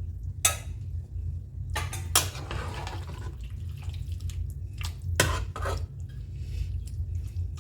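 A spoon knocking and scraping against a cooking pan as a cornflour-thickened chicken gravy is stirred, about five separate clinks with scraping between them.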